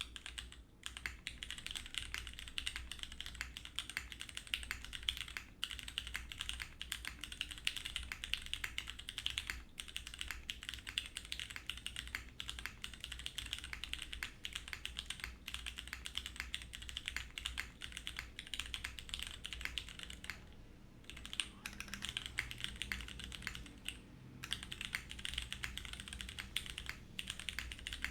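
Fast continuous typing on a mechanical keyboard with Cherry MX Grey switches, a PEI plate and DCS keycaps, a dense run of key clacks with two short pauses near the end.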